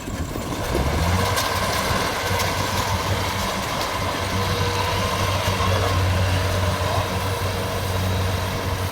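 Kubota DC70 combine harvester's diesel engine revving up about a second in, then running steadily as the machine sets off.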